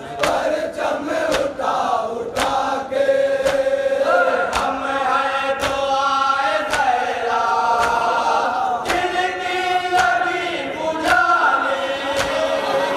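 A man chanting a nauha (Shia Muharram lament) into a microphone in long, wavering held notes, with a crowd of mourners chanting along. Regular sharp slaps of matam, the mourners beating their chests in time, cut through the chant.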